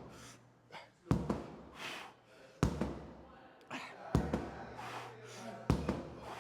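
Sledgehammer strikes in a steady rhythm: four heavy, sharp blows about a second and a half apart, each leaving a short low ring.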